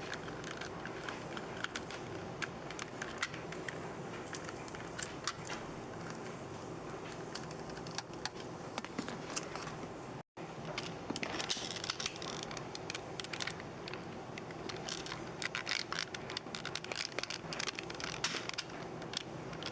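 Small irregular clicks, taps and scrapes of handling over a steady low hum. The sound cuts out for a moment about ten seconds in, and the clicks come thicker after that.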